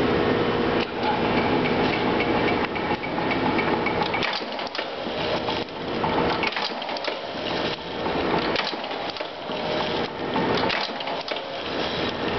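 Self-piercing rivet machine running, its motor humming steadily, with repeated sharp clacks as the head drives rivets through a sheet-metal strip.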